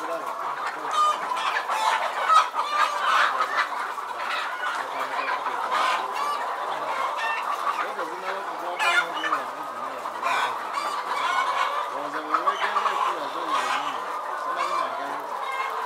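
A flock of caged laying hens clucking continuously, many birds calling over one another at once.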